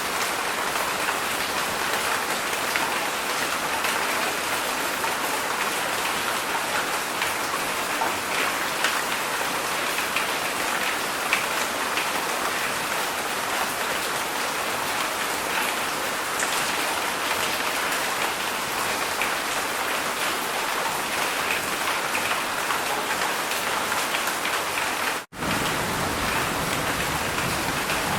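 Heavy rain falling steadily, a dense hiss of many drops. About 25 seconds in, the sound cuts out for an instant and comes back with a deeper rumble underneath.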